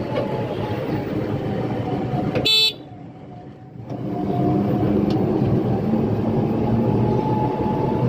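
A road vehicle running along, its engine and road noise steady, with one short, loud horn toot about two and a half seconds in. The noise dips for about a second after the toot, then picks back up.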